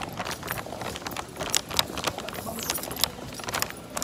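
Irregular sharp clicks and taps, a few of them louder near the middle, from footsteps on a hard floor and the phone and drink being handled, over faint background voices.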